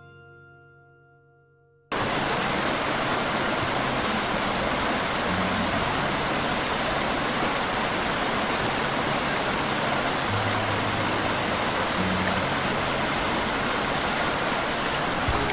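A steady, even rushing noise, like water or rain, starts suddenly about two seconds in as guitar music fades out, and holds level throughout. Faint low music notes continue beneath it.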